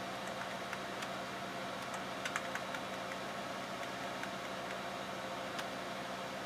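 Steady whir and hum of computer fans, with scattered keyboard key presses as text-mode menus are stepped through, including a quick cluster of presses a little over two seconds in.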